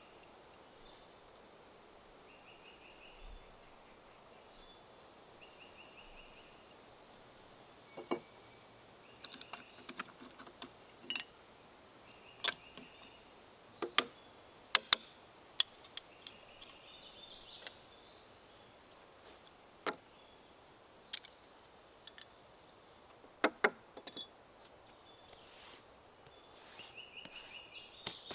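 Hand tools clicking and knocking, a scatter of sharp, irregular strikes from about eight seconds in until near the end. A bird repeats a short trill several times.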